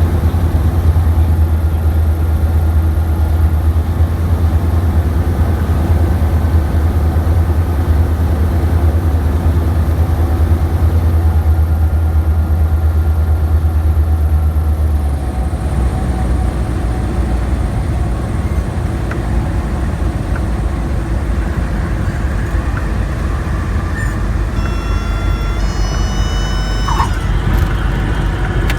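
Cessna 172's piston engine droning steadily in the cockpit on approach; about halfway through its low note drops and weakens as power comes back for landing. Near the end, a few short high whistling tones sound.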